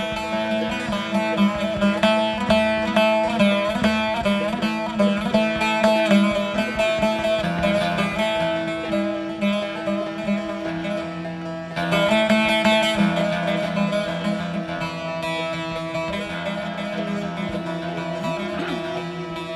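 Turkish folk instrumental: several bağlamas (long-necked lutes) picking a fast melody together, with a violin. The music dips briefly and comes back in fuller about twelve seconds in.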